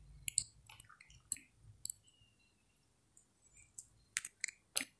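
Faint, irregular small clicks, a few early and a cluster near the end.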